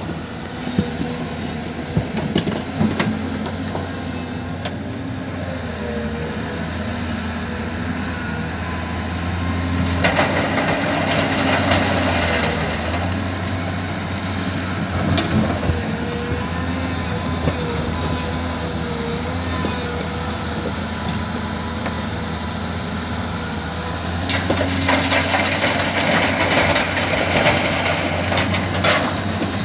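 Heavy earth-moving machinery running steadily with a low diesel drone and scattered knocks, with two louder, noisier stretches about ten seconds in and again near the end.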